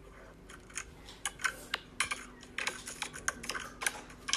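Light, irregular clicks and taps, several a second, over a faint steady low hum.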